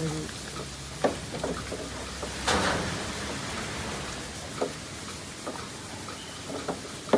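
Milking parlour machinery: a steady hiss with scattered sharp clicks, and a louder hiss lasting about half a second some two and a half seconds in.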